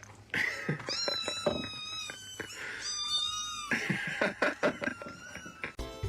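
A cat giving two long, drawn-out meows, each held at a steady pitch for about a second, with light knocks and clicks around them. Music starts right at the end.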